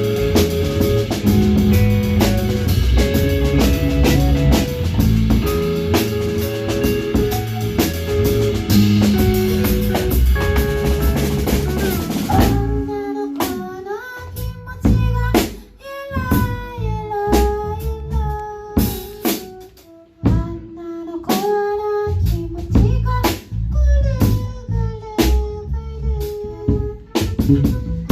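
Live band with a drum kit playing improvised music: a dense groove with bass, drums and constant cymbals for the first half, then the cymbals stop and it thins to sparse drum hits under a melodic line with bending notes.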